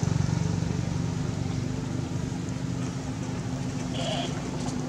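Engine of a nearby vehicle running steadily and slowly fading away, a low hum. About four seconds in, a short high-pitched chirp.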